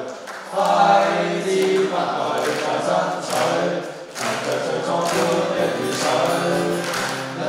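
Mixed choir of teenage students singing, with long held notes and a short break between phrases about four seconds in, accompanied by acoustic guitar.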